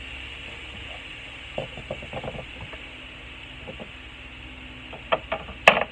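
Silicone spatula stirring and scraping a thick flour roux with onions and garlic in a square copper-coloured pan, a run of soft scrapes and clicks. About five seconds in come a few sharp clicks, the loudest a single knock just before the end.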